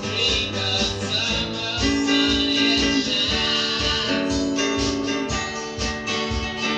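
Country-style rock recording: strummed acoustic guitar in a steady rhythm, with long held notes over it about two and four seconds in.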